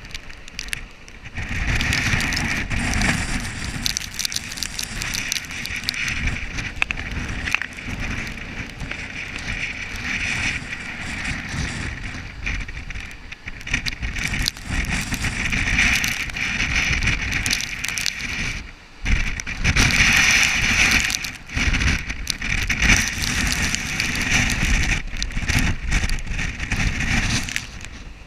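Hurricane wind gusting hard across the microphone, a rushing noise that rises and falls, with a couple of brief lulls.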